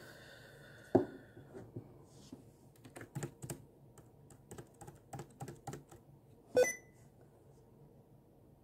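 Typing on a computer keyboard: an irregular run of key clicks, with a sharp tap about a second in and a louder, slightly ringing click near the end of the run.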